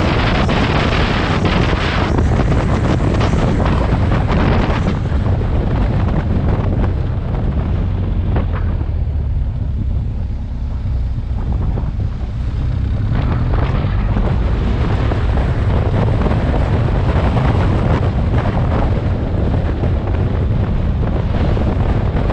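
Wind buffeting the microphone of a moving motorcycle, over the low rumble of its engine. The noise eases for a few seconds around ten seconds in, then comes back.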